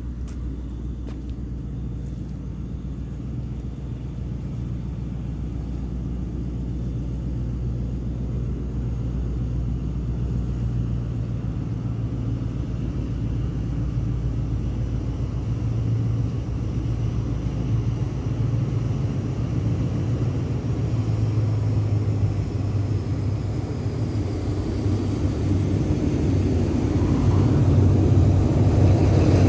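Diesel locomotive of an approaching train: a low, steady engine rumble that grows louder as it nears, swelling most in the last few seconds.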